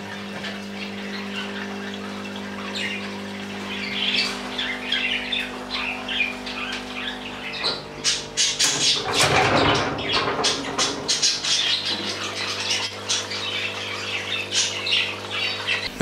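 Caged pet birds calling, with many short chirps and squawks that grow busier toward the middle and include one louder squawking burst. A steady low hum runs underneath.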